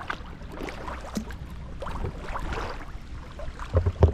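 Choppy river water splashing and slapping against a kayak, with wind rumbling on the microphone. Two louder low thumps come near the end.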